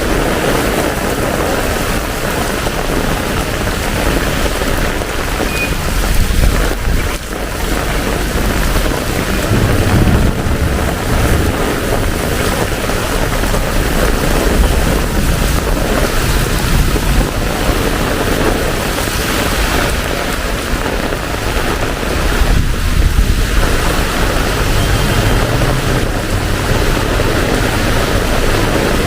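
Heavy tropical downpour: a steady, loud hiss of rain, with a low rumble rising under it about ten seconds in and again near the end.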